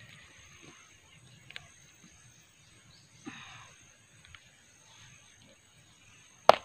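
Hands scraping and pulling at dry soil, roots and dead stems while digging a taro corm out of the ground. Soft scrapes and rustles come and go, and one sharp snap sounds near the end. A faint steady high-pitched whine runs underneath.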